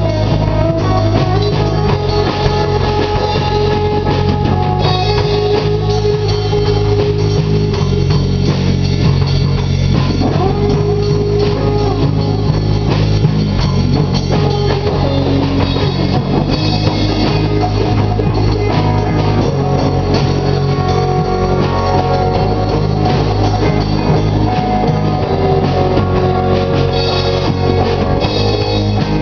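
A live rock band playing stoner rock: electric guitars and a drum kit, loud and continuous.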